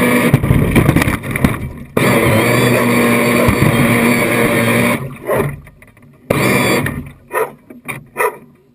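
Radio-controlled model boat's motor running, heard from on board with water rushing past the hull. It runs steadily with a brief drop about two seconds in and stops about five seconds in. It comes back for half a second, and a few short bursts follow.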